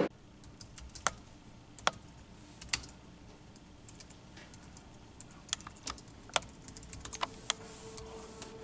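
Typing on a thin Apple computer keyboard: scattered, irregular key taps that come more often in the second half.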